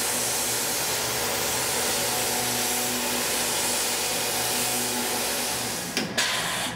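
Tormach CNC mill spindle running at high speed while an end mill rough-cuts aluminum in an adaptive toolpath: a steady machining whine over a hiss of coolant spray. About six seconds in there is a brief sharp knock, and the steady noise drops away.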